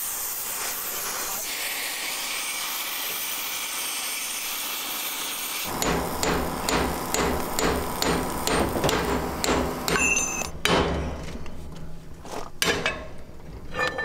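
Hammer blows on the metal power take-off shaft of a Wheatheart 13-inch grain auger, driving the shaft and bearing loose: a run of strikes about three a second for some five seconds with a brief metallic ring, then a few single blows near the end. Before the hammering comes a steady hiss lasting about five and a half seconds.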